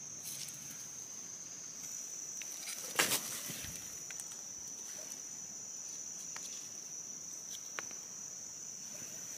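An insect's steady high-pitched drone, one unbroken tone, with a single sharp snap about three seconds in and a few faint ticks.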